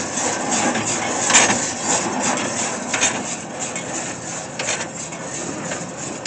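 New Holland Hayliner 67 square baler running empty off the tractor's PTO, with no hay in it: a steady mechanical clatter with a sharp knock about every second and a half.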